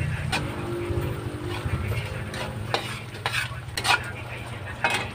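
Metal spatula stirring and scraping thick shrimp paste around a metal wok, with a series of sharp scrapes against the pan, most of them in the second half, over the steady simmering of the paste.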